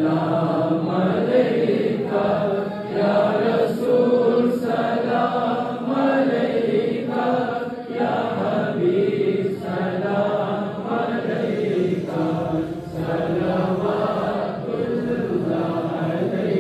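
Men's voices chanting together in a continuous, melodic devotional Milad recitation in praise of the Prophet.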